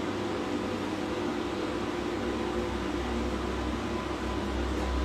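Steady hum and fan-like hiss of running equipment in a small treatment room, with a low rumble that swells in the second half.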